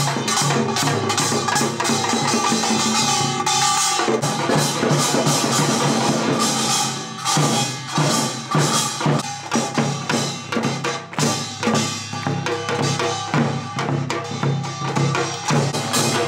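Music with a drum and percussion beat. The texture changes about four seconds in, and from about seven seconds the drum strokes stand out more clearly.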